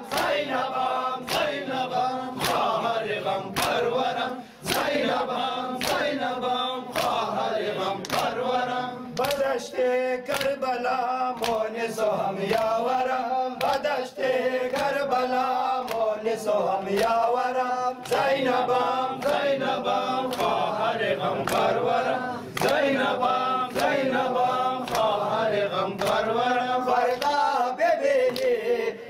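A crowd of men chanting a noha, a Shia mourning lament, in unison, over a steady beat of open-handed chest-beating (matam) slaps, a little faster than one a second.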